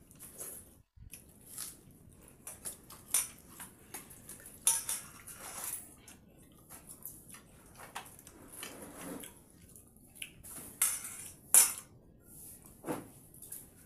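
Hands eating pakhala (watered rice) from stainless steel bowls and plates, with irregular light clinks and taps of fingers against the steel, the loudest about two thirds of the way through.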